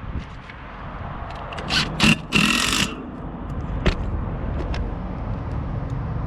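A few short scraping noises, the longest about half a second a little past two seconds in, then a sharp click, over a steady low rumble.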